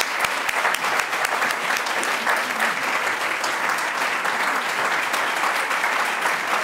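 Audience applauding: many people clapping together, steady throughout.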